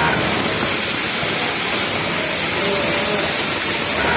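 Steady, loud hiss of garment-factory machinery running on the shop floor. The steady tones of the nearby flatlock sewing machine are absent: the machine is paused.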